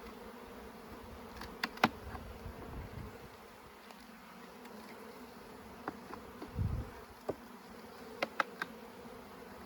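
Honey bees buzzing in a steady hum around an open hive box. A few sharp clicks come about two seconds in and again near the end.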